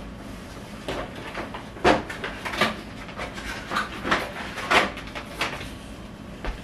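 Handling noise from the recording device being moved and repositioned: a string of irregular knocks, clicks and rattles, the loudest about two seconds in and just before five seconds.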